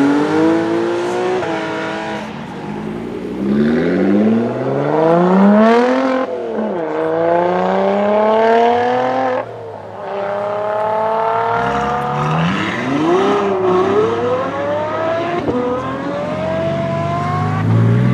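Porsche 911 Cabriolet's flat-six accelerating hard up through the gears, its note rising in pitch and dropping back at each of several upshifts. Near the end a deeper engine note comes in close as another car pulls up.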